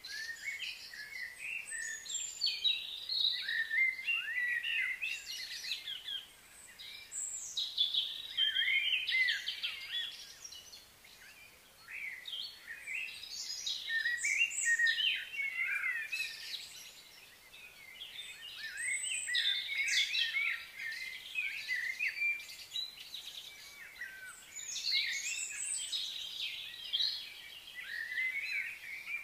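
Birds chirping and singing outdoors, many short rising and falling calls in bouts of a few seconds with brief lulls between.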